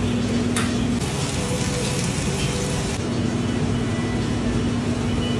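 Steady mechanical drone with a low hum, which drops out for about two seconds and then returns, and a single light tap about half a second in.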